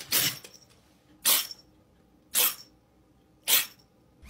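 Tabby kitten sneezing four times, about a second apart, each sneeze a short sharp burst.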